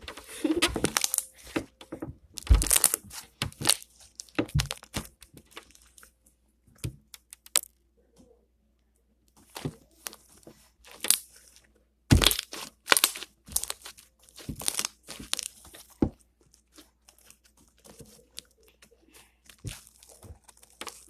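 Slime being worked by hand, with irregular sharp pops and crackles as air bubbles in it burst. They come in clusters, with a quieter stretch of a few seconds in the middle.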